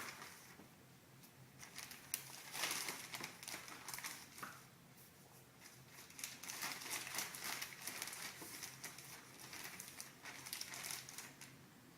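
Thin plastic poly bag rustling and crinkling in irregular bursts as it is handled and packed.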